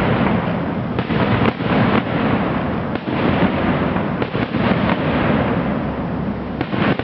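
Fireworks display in full swing: a dense, continuous barrage of overlapping bangs and crackling shell bursts with no pause.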